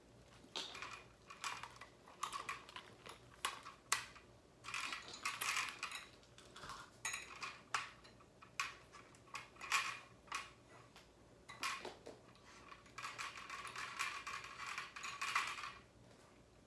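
Irregular clicks, light clatter and rustling from a black electrical cord and its hard plastic fittings being handled and untangled by hand.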